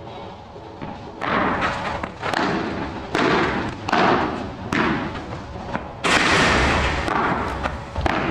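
Padel rally: the ball struck back and forth with rackets and bouncing off the court, a sharp hit about every second, each echoing in the large hall. About six seconds in comes a longer, louder stretch of noise.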